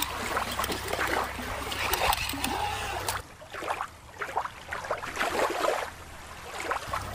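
Shallow water splashing and lapping as a hand moves a plastic toy through it. A little over three seconds in, this cuts to a different, quieter recording with no clear source.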